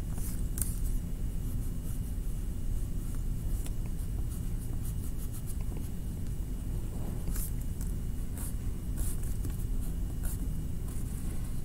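Black crayon scratching on paper in short, uneven strokes while outlining a drawing, over a steady low rumble.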